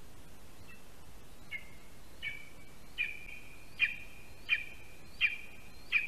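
Lesser spotted eagle nestling calling: a series of about eight sharp, high yelps, roughly one every three quarters of a second, each trailing into a short held whistle. The calls start faint and grow louder.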